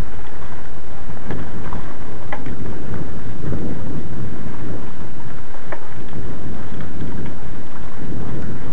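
Loud wind rumble and rattling vibration from riding a mountain bike over a gravel track, with tyre crunch and a few sharp clicks of stones and gear.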